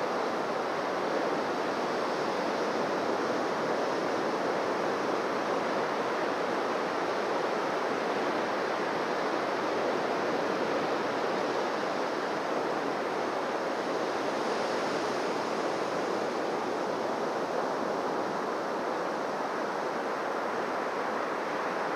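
Surf washing on a beach: a steady, even rush of waves with no single breaker standing out.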